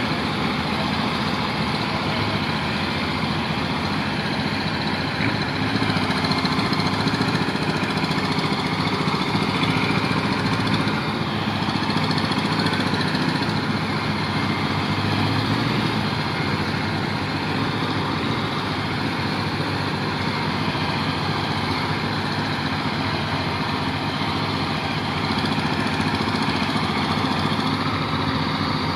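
Diesel engine of a heavy-haul truck running steadily at low revs while it crawls along, pulling a multi-axle trailer loaded with a 700-tonne pressure vessel. It grows slightly louder and softer a few times.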